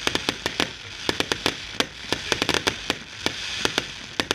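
Fireworks display going off: rapid, irregular bangs, several a second, over a steady hiss.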